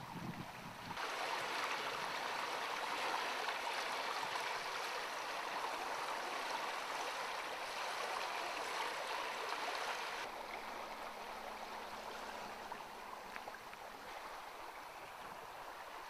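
Shallow water running and splashing, a steady rushing that starts suddenly about a second in and stops abruptly after about nine seconds, leaving a softer, steady outdoor hiss.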